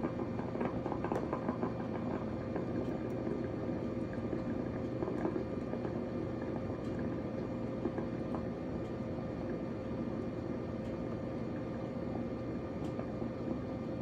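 Cuisinart DCC-450BK drip coffee maker brewing: its heated water bubbling steadily through the machine, with a steady hum beneath.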